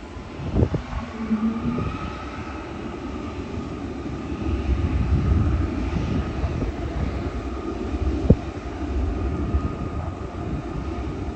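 Jet airliner passing low overhead: a low rumble that swells about four seconds in, with a high engine whine that bends slightly in pitch, and wind buffeting the microphone.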